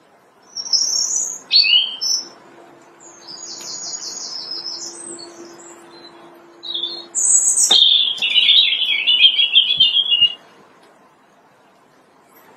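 European robin singing: a string of high, thin, varied warbling phrases, one after another, stopping for a pause near the end.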